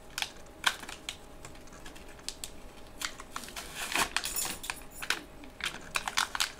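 Plastic and cardboard packaging crinkling and rustling, with scattered sharp clicks, as a small magnetic tin is worked out of its pack. The crinkling is thickest around four seconds in.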